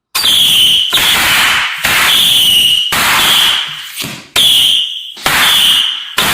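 Fireworks going off in loud, crackling bursts about once a second, starting suddenly, with a high-pitched alarm beep sounding through each burst.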